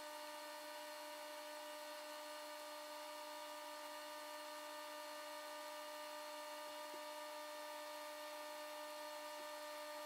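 Faint steady electrical hum made of several pitched tones over a light hiss, with a faint tick about seven seconds in.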